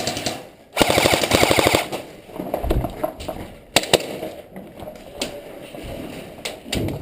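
Airsoft guns firing rapid full-auto bursts: a short burst at the start, then a longer one of about a second. After that come scattered single sharp cracks and snaps.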